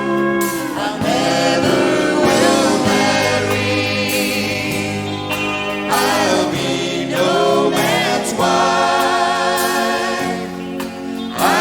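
Country band playing live, with voices singing in harmony over pedal steel guitar, guitars, bass, drums and piano; several notes swoop in pitch.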